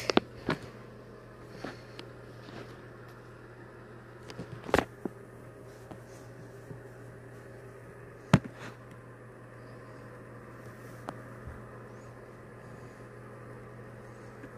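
A steady low hum with a few sharp clicks, the loudest about five and eight seconds in.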